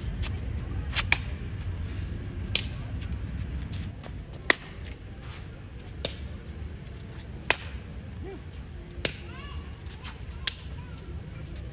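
A shuttlecock being kicked back and forth: sharp slaps of foot on shuttlecock, about one every second and a half, with a quick double hit about a second in.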